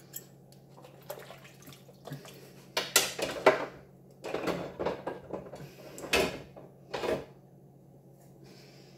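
Small plastic nebuliser parts being handled and set down at a kitchen sink, with a few short knocks and clatters, the loudest about three seconds in and again just after six seconds.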